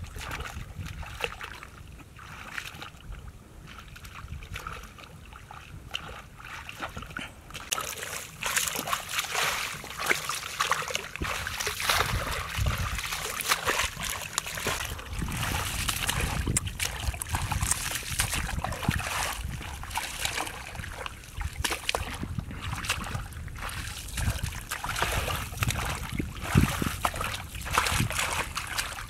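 Hands splashing and sloshing in shallow muddy water, groping through the mud. The splashing grows louder and busier about eight seconds in.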